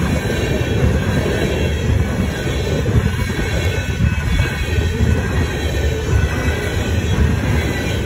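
Empty ethanol tank cars of a freight train rolling past, a loud steady rumble of steel wheels on the rails.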